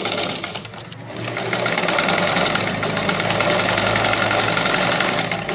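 Pfaff 31 sewing machine stitching through denim. After a few clicks it picks up speed about a second and a half in, then runs at a steady, rapid stitch.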